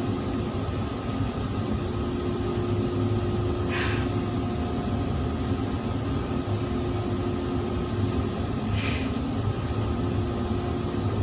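Steady drone of a ship's machinery and ventilation: a low hum with a few held tones. Two brief hisses come through, about four and nine seconds in.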